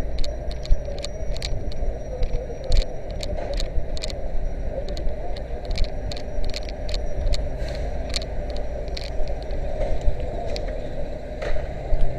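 Fire engine's motor running steadily as a low rumble, with many scattered sharp clicks and knocks over it.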